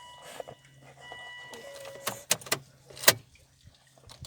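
A steady electronic warning tone from the 2004 Volvo S60R's dashboard sounds in short stretches in the first two seconds, over a low hum with the ignition on. Then come several sharp clicks of the ignition key and controls as the service light is reset, the loudest a little after three seconds in.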